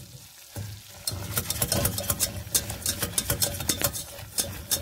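Wire whisk stirring a bubbling butter-and-flour roux in a stainless steel pot, its wires scraping and clicking quickly against the pot over a soft sizzle. The clicking starts about a second in.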